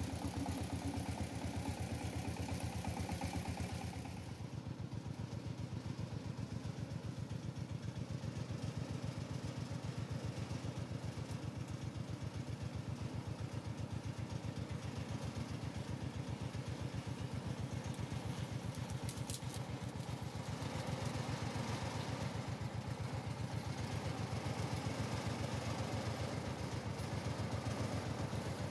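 Single-cylinder diesel engine of a two-wheel walking tractor pulling a loaded trailer, running with a steady rhythmic chug. It gets a little quieter about four seconds in and grows louder again in the last third.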